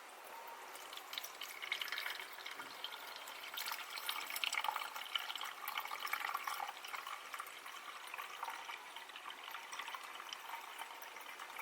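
Tap water pouring and splashing into the plastic water tank of a 1.5-litre ultrasonic humidifier, loudest in the middle and easing off toward the end.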